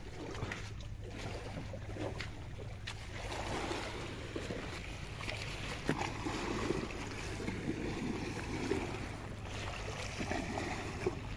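Wind rumbling on the microphone over small waves lapping at a pebble shore, with a few sharp clicks.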